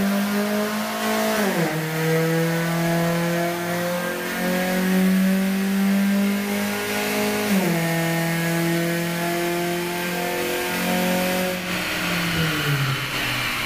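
Kia Forte 2.0 GDI four-cylinder engine at wide-open throttle on a chassis dyno, heard from inside the car. The revs climb steadily, drop suddenly at two upshifts (about 2 s and 8 s in), then wind down as the throttle is lifted near the end.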